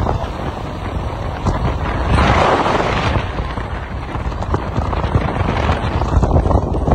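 Wind buffeting the microphone over the rumble of a moving vehicle, with a louder rush about two seconds in.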